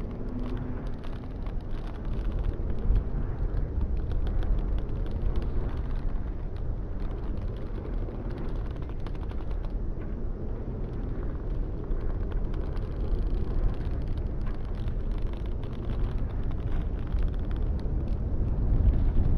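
Steady wind rumble with many small irregular clicks and ticks of a turning windmill mechanism, swelling a little near the end.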